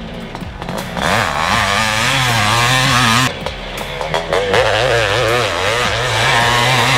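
1983 Honda CR480R's single-cylinder two-stroke engine revving hard under the rider, its pitch rising and falling with the throttle. The throttle is backed off twice, at the start and about three seconds in, before the engine pulls strongly again.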